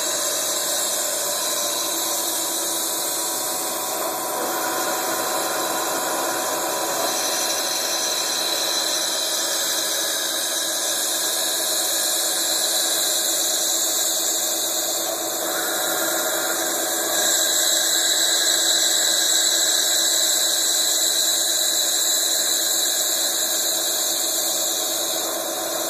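High-speed milling spindle whining steadily as a small cutter machines into the side of a metal tube held in a chuck, with a high cutting squeal. It grows a little louder about two-thirds of the way through.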